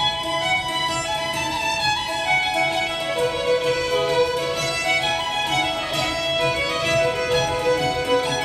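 Fiddle music: a Scottish-style dance tune played over a steady beat, the accompaniment to a dance medley.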